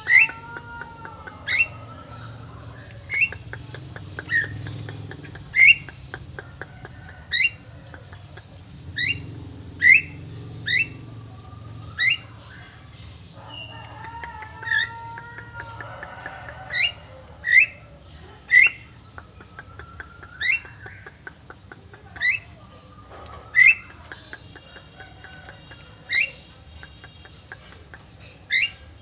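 Javan myna calling over and over: short, sharp notes that sweep upward in pitch, repeated roughly once a second. Fainter gliding whistles sound in the background near the start and around the middle.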